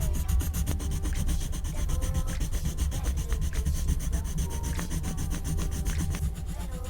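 Pencil scratching on paper in quick, continuous back-and-forth strokes, as in shading.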